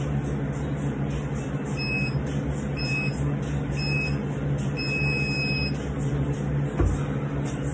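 Workout interval timer counting down over a steady hum: three short beeps about a second apart, then a longer beep marking the start of a work interval. A low thump follows near the end.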